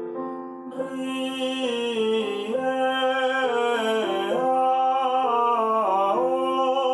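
A singer vocalising a warm-up exercise on vowels over piano accompaniment, the sung line stepping up and down a scale note by note. The exercise places each vowel where the 'i' sits, away from the throat.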